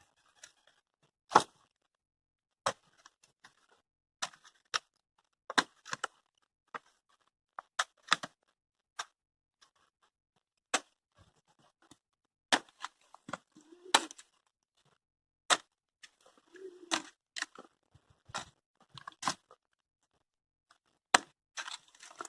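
Irregular sharp cracks and knocks, roughly one a second, some with a dull thud: dry wood and hardened clay of a stick-and-clay frame being broken and pulled apart.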